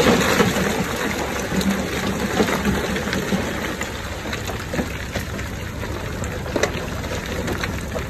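Komatsu D20P bulldozer's diesel engine running with a low steady rumble under a dense hiss and crackle of stone and gravel being pushed and tumbling, loudest at the start.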